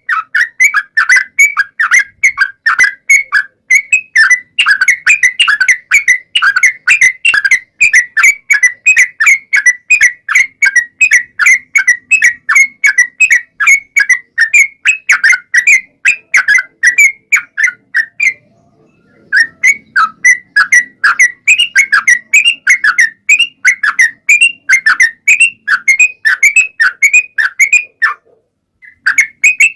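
Yellow-vented bulbul (trucukan) in a long, rapid run of loud chirping, whistled notes, several a second, with a short break about 18 seconds in and another near the end.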